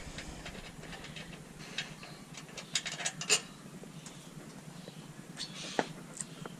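Hand tools working on the motorcycle's rack bolts: scattered short metallic clicks and clinks, a few close together about a third of the way in and a couple more near the end.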